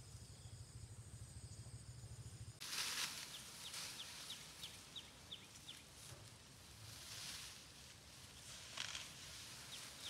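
Outdoor rural ambience: a low hum with steady high insect tones, then an abrupt change to rustling and a run of short, high, falling bird chirps, about three a second.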